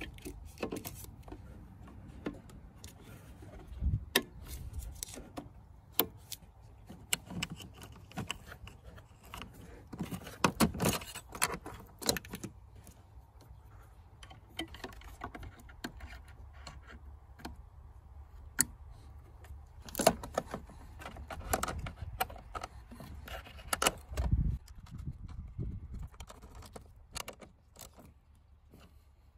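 Plastic wiring-harness connectors on a car's engine-bay fuse box being unplugged and handled: irregular clicks, ticks and light rattles of the plugs and cables.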